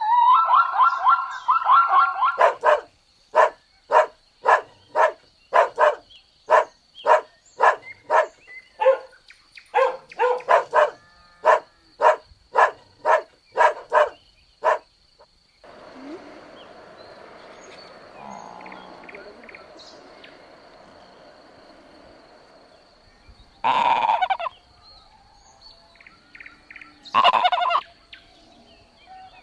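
Animal calls: a long series of short, sharp calls repeated about twice a second, then a quieter stretch of background noise, and two louder single calls near the end.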